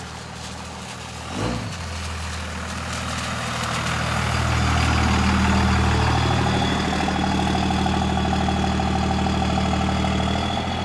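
Cummins diesel truck engine running as the truck is driven out, growing louder over a couple of seconds and then holding steady. A single thump about one and a half seconds in.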